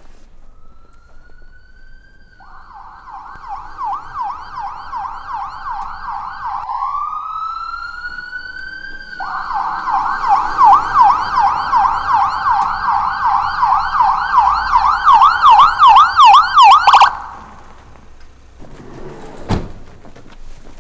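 Ambulance electronic siren approaching. It rises in a slow wail and switches to a rapid up-and-down yelp, then gives a second brief wail and a louder yelp. The siren cuts off suddenly about three quarters of the way through.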